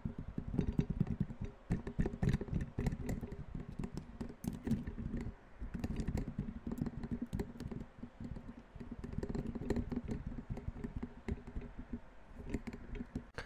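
Rapid, irregular tapping: many light knocks a second with a dull low thud to them, broken by a few brief pauses.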